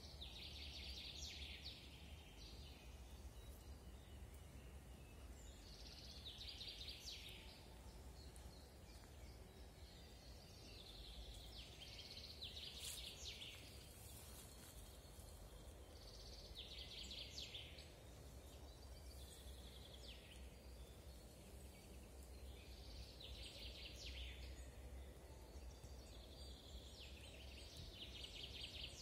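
A songbird repeating the same short, fast phrase about every five seconds, over a faint low rumble of wind.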